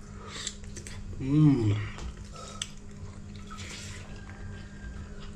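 One short voice sound rising and then falling in pitch about a second in, over a steady low hum and faint clatter.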